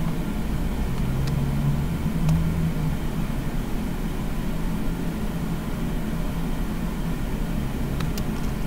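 Steady low background hum, like a fan or air conditioner, with a few faint clicks.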